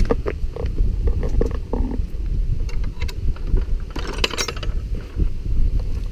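Metal bolt latch on a wooden field gate rattling and clicking as it is worked open by hand, in a quick burst about four seconds in, over a low rumble of wind on the microphone.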